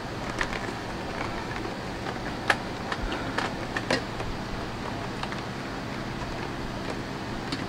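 Handling noise from a new power cord being fed up into the cord channel on the side of a Sebo Evolution 350 upright vacuum's plastic body: a few scattered light clicks and knocks over a steady background hiss.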